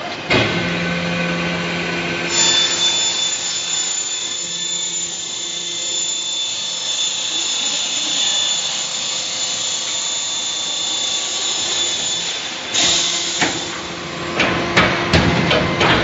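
Hydraulic scrap-metal baler running, its power unit giving a steady hum with a high whine. In the last few seconds come several sharp metallic clanks and knocks.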